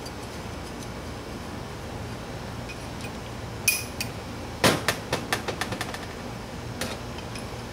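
Small metal clicks and clinks as a wrist-pin retaining clip is worked into a VW 1600 piston: one sharp click, then a quick run of about eight light taps a second later.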